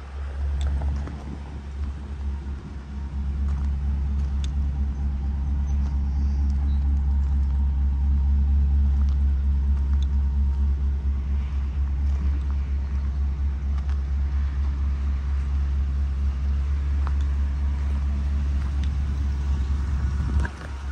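Chevrolet 3500HD pickup truck's engine idling steadily with a low rumble. It grows louder over the first few seconds and is loudest around the middle.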